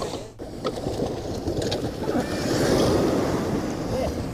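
Surf washing and breaking in shallow water, with wind buffeting the microphone.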